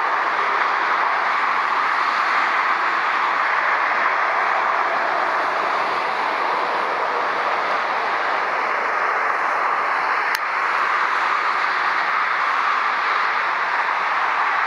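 Steady, even roar of motorway traffic from the nearby autobahn, with a single brief click about ten seconds in.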